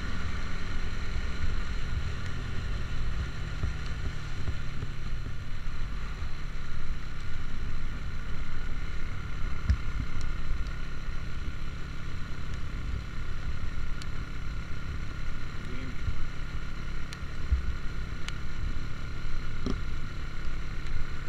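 Vehicle on the move: steady low road-and-engine rumble with a constant hum, and a few faint ticks.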